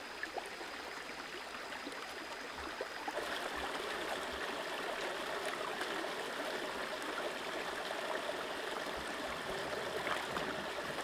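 Shallow rocky stream running over stones, louder from about three seconds in, with light splashing as hands wash in the water.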